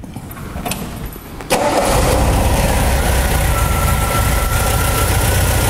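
1981 MGB GT's 1.8-litre B-series four-cylinder engine starting about a second and a half in, then running steadily with a thin steady whine over the rumble. It is running on freshly fitted contact-breaker points and condenser, with the dwell reading within specification.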